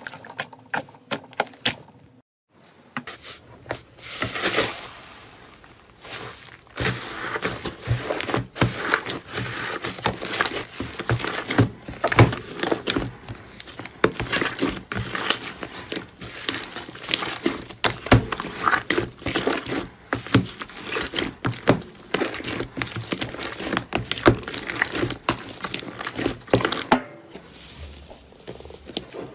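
Slime being squeezed, poked and pressed by hand: a dense run of sticky clicks, pops and crackles. It pauses briefly about two seconds in, then picks up again.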